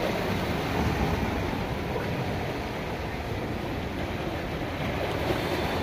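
Steady wash of ocean surf, with wind buffeting the microphone.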